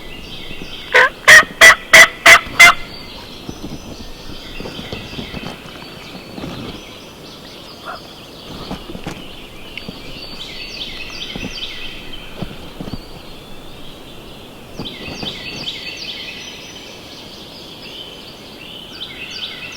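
Wild turkey gobbler gobbling loudly, one rattling gobble of about six quick pulses about a second in. Songbirds sing faintly through the rest.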